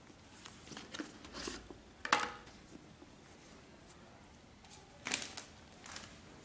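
Rustling and short scuffs of a sneaker and its laces being handled and turned over in the hands, with two louder scuffs about two seconds in and about five seconds in.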